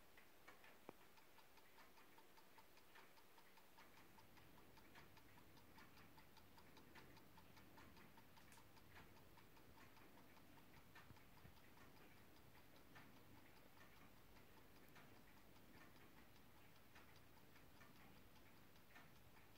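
Faint, steady ticking of a Junghans Electronic ATO-MAT wall clock's battery-powered electronic balance-wheel movement.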